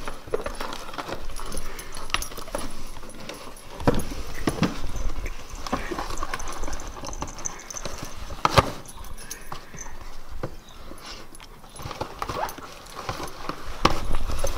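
A Siberian husky knocking a cardboard box about and biting and scraping at it to tear it open: irregular thumps and cardboard scraping. There is a louder knock about four seconds in and another about eight and a half seconds in.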